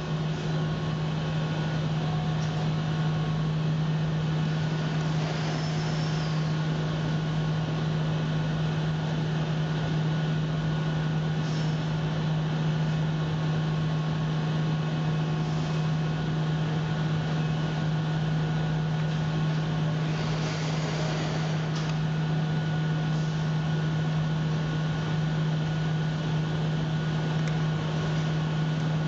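Steady low mechanical hum with a constant pitch, like ventilation or machinery running in a workshop, with a few faint clicks and handling noises over it.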